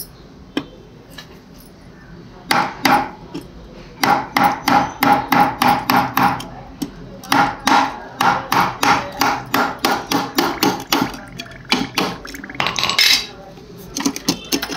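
Hammer blows on a hand tool held against the bottom of a broken ceramic cup, knocking a drainage hole through it. The knocks are sharp and ring a little, about three a second in runs broken by a few short pauses.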